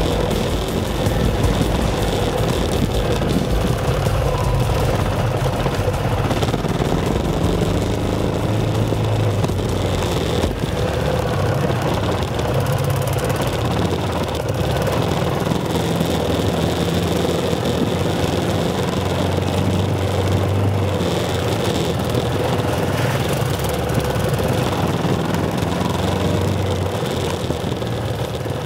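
Trail motorcycle engine running at riding speed along a dirt track, heard from on a moving bike, its note rising and falling slightly with the throttle over a steady rushing noise.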